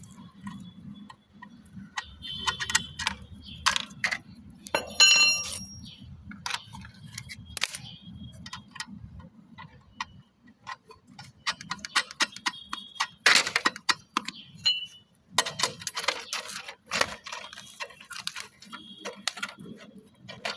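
Metal clinks and clicks of a wrench fitting and tightening the last nut and washer on a machine's mounting bolt, irregular knocks with now and then a short metallic ring, over a low hum.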